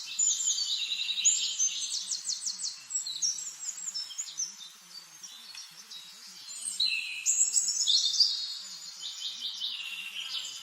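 Several songbirds singing at once: fast trills and chirps overlapping, quieter for a couple of seconds in the middle.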